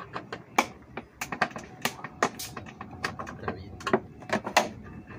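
A thin metal tool clicking and scraping against the cut-down base of a plastic water jug: irregular sharp clicks and short scrapes, a few a second.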